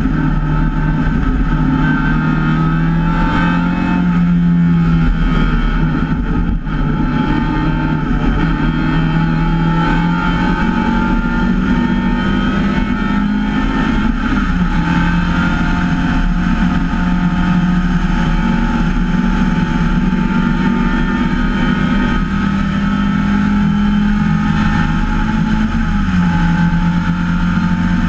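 MGA race car's four-cylinder engine running hard at high revs, heard from the open cockpit. Its pitch drops and climbs again several times, with a brief break in the sound about six and a half seconds in.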